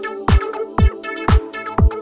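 Electronic dance music: a kick drum about twice a second over a held synth chord, with quick hi-hat ticks between the beats.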